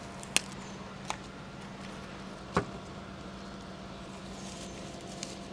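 A steady low hum, with a few short sharp clicks and taps scattered through it, the clearest about a third of a second in and again about two and a half seconds in.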